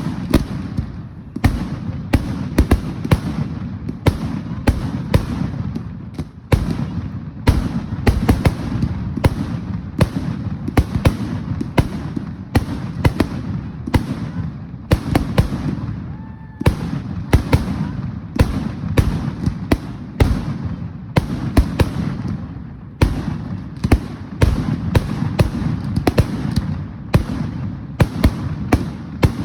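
Fireworks display going off in a dense barrage: sharp bangs and crackles, two or three a second, over a continuous low booming rumble.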